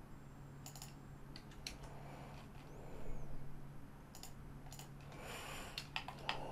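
Computer keyboard keys and mouse buttons clicking, a scattered handful of sharp clicks, over a steady low hum.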